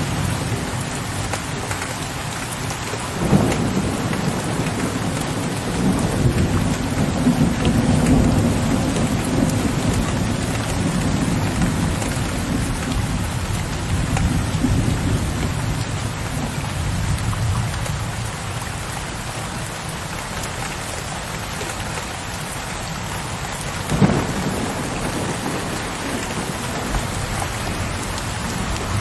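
Steady heavy rain with thunder: a low rolling rumble through the first half that fades away, and two sharp thunder cracks, one about three seconds in and a louder one near the end.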